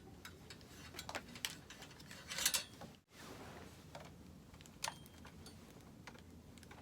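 Scattered light clicks and rattles of ring-light parts and cord being handled during assembly, with a louder rattle about two and a half seconds in and another click near five seconds in. The sound drops out for an instant just after three seconds in.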